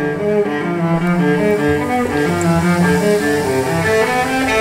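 Background music played on cello and other bowed string instruments, a melody of notes moving steadily along.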